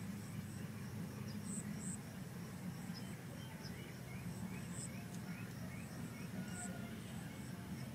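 Outdoor ambience: small birds and insects chirping in short, repeated high calls, about two a second, over a steady low rumble.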